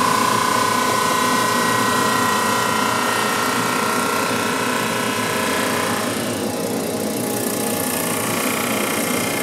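Drum sander running steadily with a mahogany board fed through it, a whining tone over the steady noise that fades about six seconds in.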